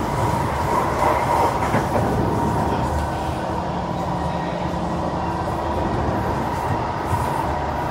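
SMRT C151 metro train with PMSM traction motors running at speed, heard from inside the carriage: a steady rumble of wheels on the track with a steady tone above it, slightly louder in the first couple of seconds.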